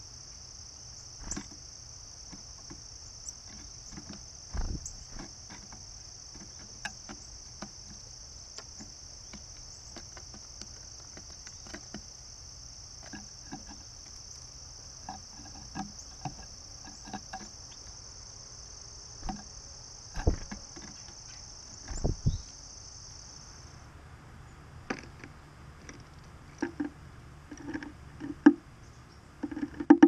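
A steady, high-pitched insect drone like crickets calling, which drops away about three-quarters of the way through. Over it come scattered taps and knocks, a few of them sharp thumps, from a black-capped chickadee landing, hopping and pecking seed on a wooden tray feeder.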